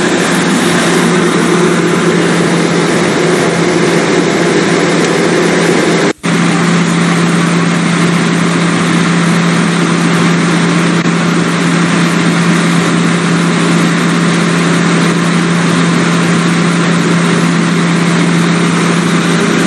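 SA137 diesel multiple unit standing and idling: a steady engine drone with a constant low hum. It cuts out for a moment about six seconds in, then carries on unchanged.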